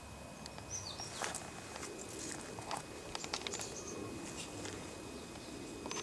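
Small bird chirping: a pair of short falling chirps about a second in and another near the end, with scattered faint clicks and ticks over a low background hiss.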